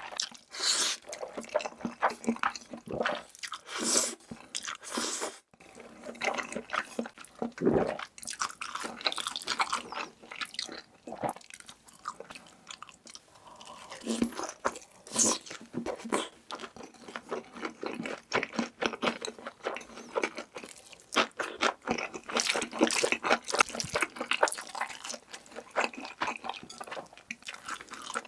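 Close-miked chewing and biting of crunchy food, with dense, irregular crackles and crunches in clusters throughout.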